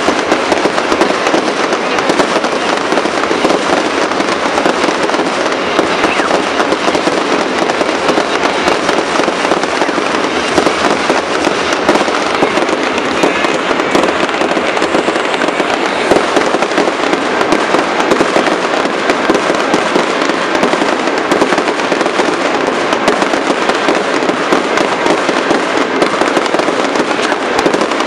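Aerial fireworks display: a dense, unbroken barrage of shell bursts and crackling stars, with no pauses.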